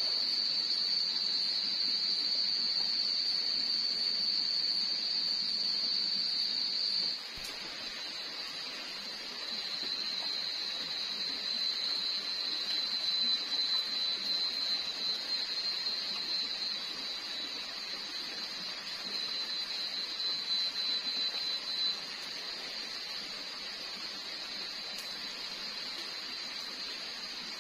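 Night-time forest insect chorus: a steady, high-pitched, unbroken chirring over a softer even rushing noise. About seven seconds in it drops in level and settles a little lower in pitch.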